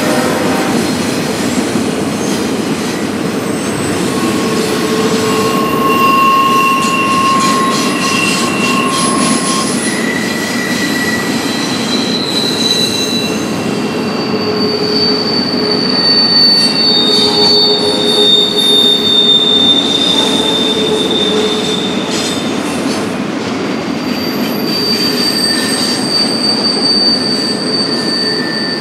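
Cars of a BNSF intermodal freight train rolling past with a steady rumble, their wheels squealing in several high tones that come and go, each lasting a few seconds.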